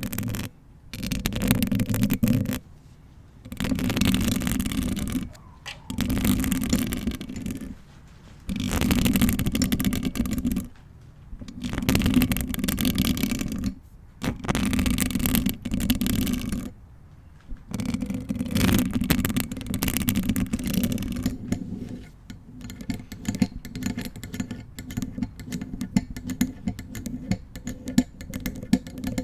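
Long fingernails and hands rubbing and scratching over a bare Blue Yeti microphone in repeated strokes of a second or two, with short pauses between. From about 22 seconds in, this gives way to a quick, uneven run of light nail ticks and taps on the mic.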